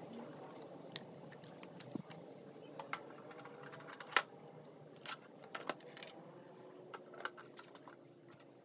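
Scattered clicks and knocks of hard plastic as a toy karaoke microphone stand's pole is handled and pushed into its base, the loudest knock about four seconds in.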